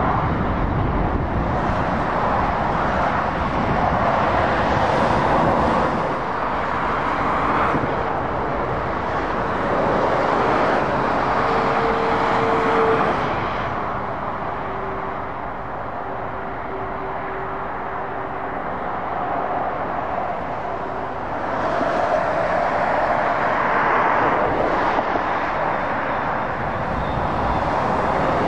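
Road traffic: heavy lorries and cars passing on a wet road, the tyre and engine noise swelling and fading as each vehicle goes by. A faint steady hum runs through the middle stretch.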